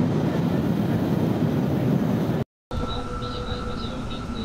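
Bullet train running at speed, heard inside the carriage as a steady rushing rumble. After a brief cut about two and a half seconds in, the cabin is quieter, with a faint steady whine over the running noise.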